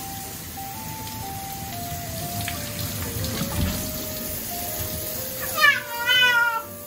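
Handheld shower spray running over a wet Scottish Fold cat. Near the end the cat lets out one loud yowl that rises and then wavers in pitch, a protest at being bathed. Light background music plays throughout.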